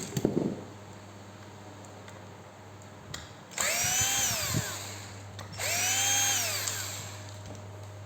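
RYU RRH26 rotary hammer's electric motor triggered twice in short bursts, each time whining up to speed and then winding down once released. There is a brief handling clatter just before.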